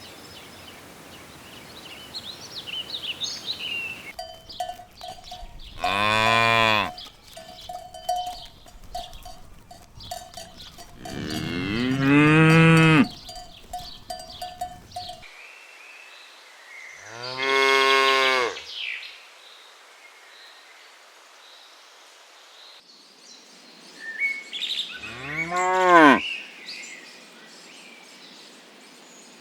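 Cows mooing: four long, loud calls spread through the stretch, each lasting a second or two, with faint bird chirps between them.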